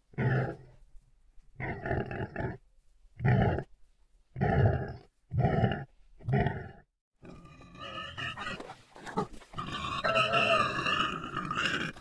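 Sound-effect animal growls and grunts, a string of short cries about a second apart, then from about seven seconds in a longer unbroken cry with a wavering pitch.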